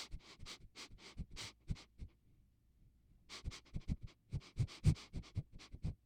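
Homemade Foley effects: a quick, irregular series of short scratchy knocks and taps with dull thuds underneath, in two runs separated by a pause of about a second.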